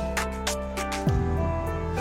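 Background music: a beat with a plucked melody, sharp hi-hat ticks, and a deep bass note that slides down in pitch about a second in.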